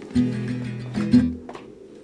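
A song's instrumental backing of strummed acoustic guitar chords, with no voice in this stretch.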